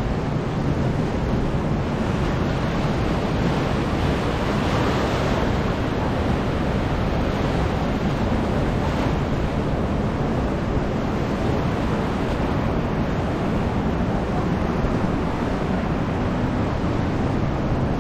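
Ocean surf washing steadily onto the shore, mixed with wind rumbling on the microphone.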